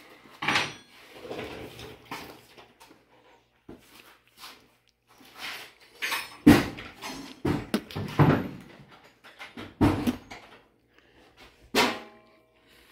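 Metal tools and sockets clattering in a toolbox drawer as it is rummaged through: irregular knocks and clanks, the loudest in a run from about halfway in, and one sharp clank with a short metallic ring near the end.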